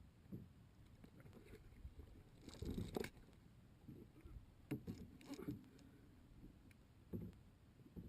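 Faint, irregular water sloshing and low knocks around a kayak, with two louder bursts about three and five seconds in.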